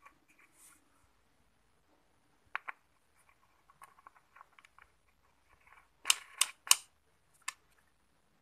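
Sharp clicks and taps of hard plastic and metal parts as a blender jar's blade assembly is handled and worked by hand: scattered small clicks, then three loud clicks in quick succession about six seconds in and one more shortly after.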